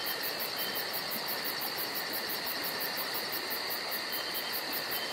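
Chorus of crickets and other night insects: a steady high trilling with a fast, evenly pulsing chirp above it.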